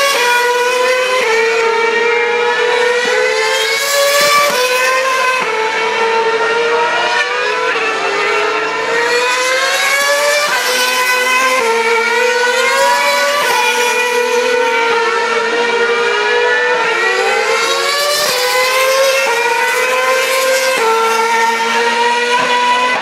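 Formula One cars' 2.4-litre V8 engines running at high revs. The pitch climbs through each gear and drops suddenly at every upshift, and several cars are heard at once.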